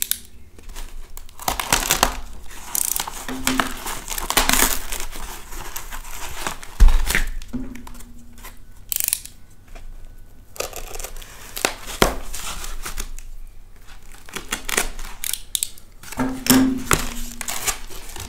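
Polyethylene foam packing sheet and brown parcel tape being pulled apart by hand: irregular crinkling and tearing of the tape and foam, with a single thump about seven seconds in.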